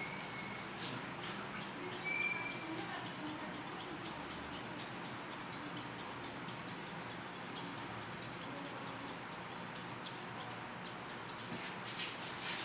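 Barber's scissors snipping hair over a comb: a steady run of crisp, quick snips, about two or three a second, that thins out near the end.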